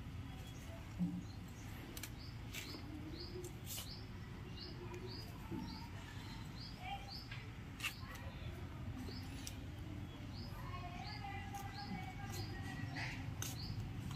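Faint, repeated high-pitched chirping: short notes about every half second, in runs with brief pauses. A few light clicks come in between.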